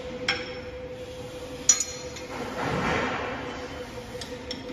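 Steel parts of a portable line boring machine clinking together as its boring bar supports are fitted by hand: a light clink just after the start and a louder ringing clink near two seconds in, then a brief scraping rustle and a couple of faint ticks.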